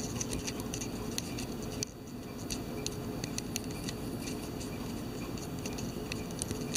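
Steady low room noise with faint, irregular light clicks and ticks scattered throughout.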